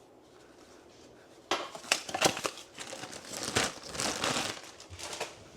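Packaging being handled and crinkled while the box is unpacked: about a second and a half of quiet, then a long run of irregular crinkling and rustling.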